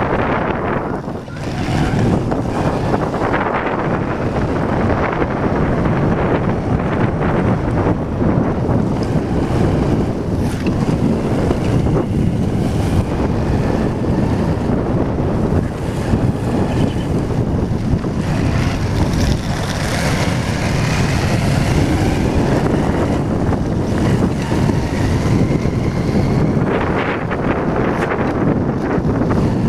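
Steady wind rush buffeting the microphone of a camera riding on a moving motorcycle, with the motorcycle running underneath.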